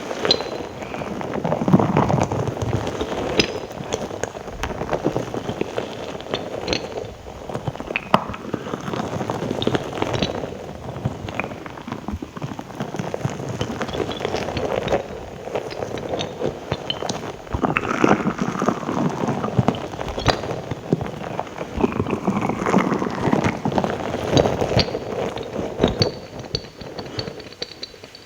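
Close-miked ASMR mouth sounds: a continuous stream of wet clicks, smacks and crackles.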